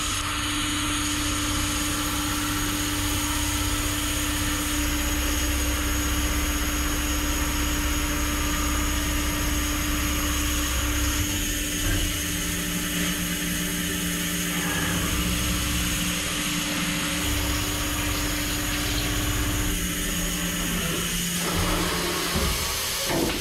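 CNC mill drilling 6AL-4V titanium with an indexable insert drill under flood coolant: a steady machine tone and low rumble over the hiss of coolant spray. A second, lower tone joins about halfway through, and the tones drop away shortly before the end as the cut finishes.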